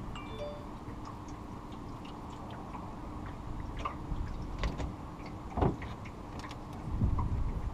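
Tackle and handling noise aboard a fishing boat: scattered light clicks and ticks over a steady low rumble from the boat, with a sharper knock about halfway through and a few low thumps near the end.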